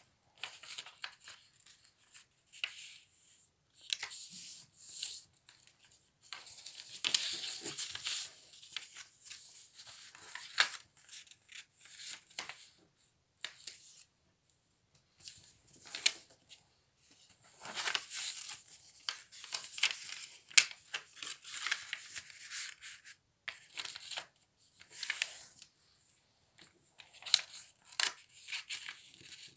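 A sheet of paper being folded by hand on a table: irregular bursts of rustling and sliding, with short sharp crackles as the folds are creased and pressed flat.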